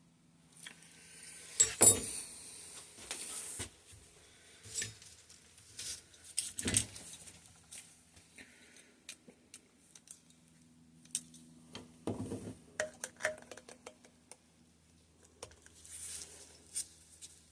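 Metal suspension-fork parts and hand tools being handled while a RockShox SID fork is taken apart: irregular clinks, clicks and knocks, with louder knocks about 2, 7 and 12 seconds in.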